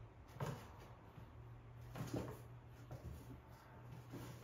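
Small cardboard box bumped and scraped about on a tile floor by a playing kitten: a few soft knocks, the loudest about half a second in and about two seconds in, over a faint steady low hum.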